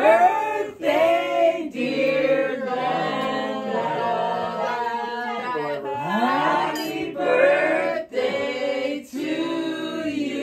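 A small group of family members, men and women together, singing a birthday song in chorus, in phrases with short breaths between them.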